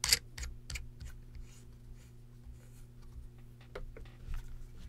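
Small metal clicks and faint scraping as a brass RDTA building deck is screwed by hand onto a box mod, the clicks mostly in the first second, over a steady low hum.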